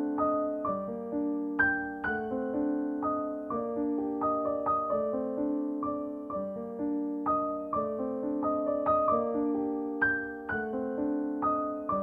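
Background music on solo piano: a slow, gentle melody of struck notes that ring and fade, its phrase coming round again about every three seconds.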